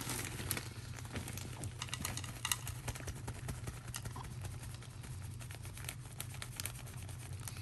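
Loose soil-like substrate poured into a clear acrylic enclosure, pattering and ticking on the plastic in many irregular little clicks.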